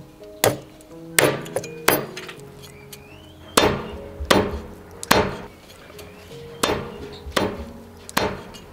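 Chinese cleaver chopping through a whole roast chicken on a thick wooden chopping block: about ten sharp chops, irregularly spaced, some coming in quick pairs.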